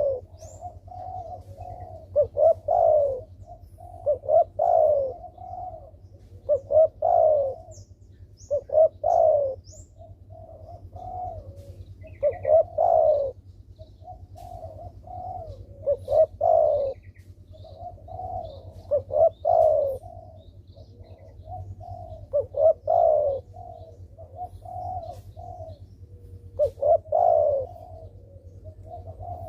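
Spotted dove (derkuku) cooing over and over, a low phrase of several coos repeating about every 2 to 3 seconds. A faint steady hum runs underneath, and a few faint high chirps come near the start.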